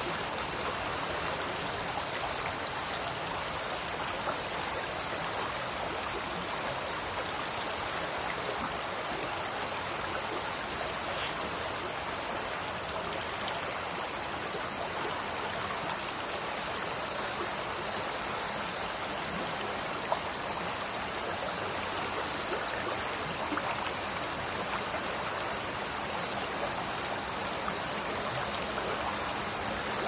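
Shallow mountain stream babbling over rocks: a steady rushing of water with a strong high hiss.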